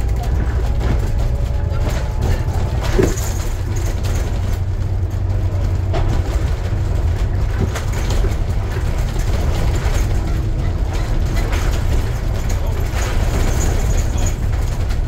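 Scania N250UD double-decker bus on the move, heard from inside the cabin: a steady low diesel engine drone with road noise, and a couple of short knocks or rattles about three and six seconds in.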